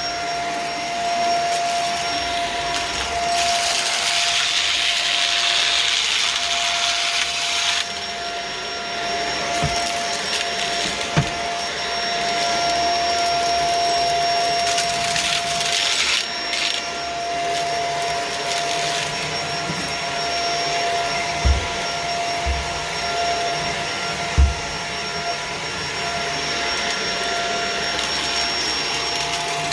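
Vacuum cleaner running steadily with a high motor whine, with stretches of louder rushing hiss as it sucks up crunchy debris and a few short low knocks in the second half.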